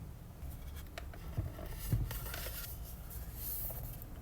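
Faint paper rustling and small handling clicks as the page of a picture book is turned.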